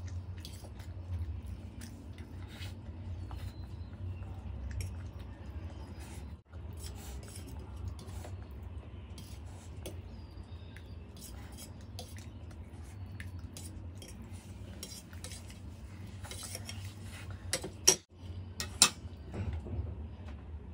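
Metal cutlery scraping and tapping on a steel plate as the last noodles are gathered up, many small clinks over a steady low hum. Two sharp, louder clinks come near the end.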